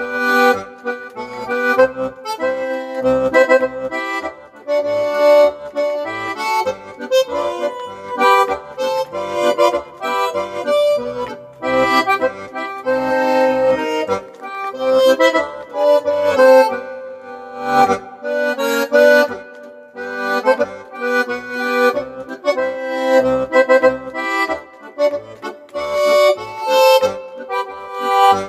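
Sampled echo concertina voice with B-flat Salpa reeds, played from a digital chromatic button accordion: a lively tune with melody notes over short, separate bass notes.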